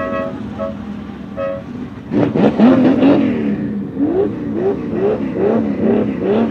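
Ferrari 330 GTO recreation's Tipo 209 V12, revved hard as the car launches from a standstill about two seconds in. Its note then rises and falls in quick repeated surges, about twice a second, as it pulls away.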